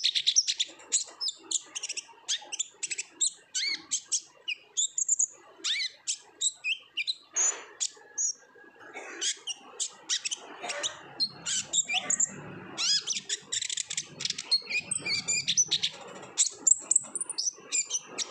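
Kolibri ninja sunbird singing energetically, a fast, unbroken stream of sharp high chirps and twittering trills that thins briefly about halfway through.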